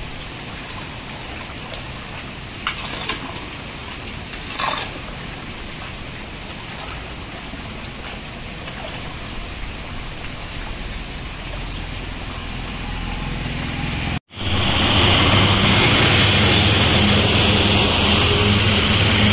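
Steady heavy rain hissing down on the road, foliage and flood runoff, with two brief scraping knocks about 3 and 5 seconds in. After a cut about 14 seconds in the rain is louder, with a low hum under it.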